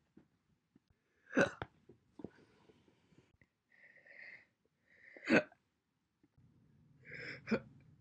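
A woman hiccuping: three sharp single hiccups, about a second and a half in, past five seconds and near the end, with soft breaths between them.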